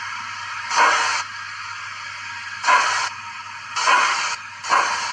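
Zimo sound decoder in a Bachmann 56xx class OO-gauge tank engine model, playing steam exhaust chuffs through its small speaker over a steady hiss. Four chuffs, each coming sooner than the last, as a locomotive picking up speed.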